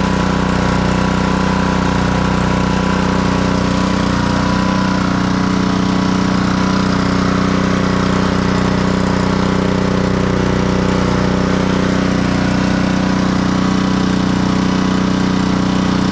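Honda GCV160 single-cylinder four-stroke engine on a pressure washer running steadily at a constant speed, after adjustment to cure a crank-no-start fault.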